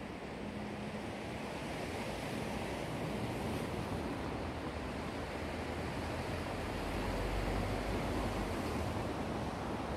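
Black Sea waves surging and washing ashore in a steady rush of surf, swelling slowly louder, with some wind.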